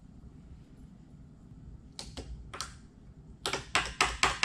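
Hammer tapping a driveshaft U-joint's bearing caps down so the snap rings can seat. A few light taps come about two seconds in, then a quick run of sharp taps, about five a second, near the end.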